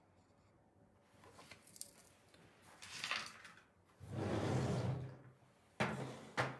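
Kit items being handled and set down on a table: light clinks and rustles, a sliding rub lasting about a second around four seconds in, then two sharp knocks near the end.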